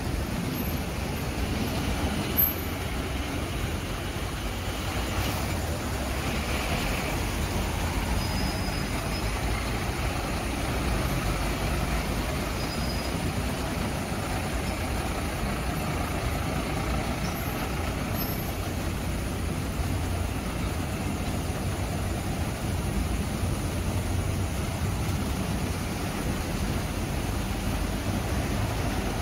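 Steady road traffic: vans and cars driving past, with a fire engine's diesel engine passing about halfway through. There is a short sharp knock a couple of seconds in.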